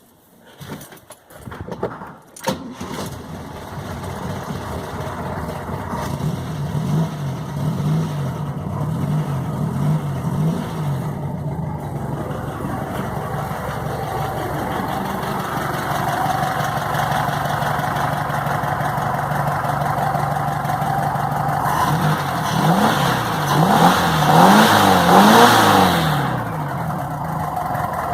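A VW Beetle's air-cooled flat-four engine starting up after a couple of seconds of cranking, then idling, with the revs blipped up and down twice and loudest near the end. It has just been fitted with a new alternator belt, and it runs without the strange noise that the old, dried-out belt made.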